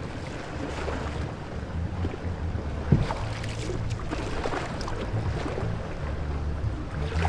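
Wind on the microphone over choppy water around a small canoe, a steady rumble with faint splashing, and a single sharp knock about three seconds in.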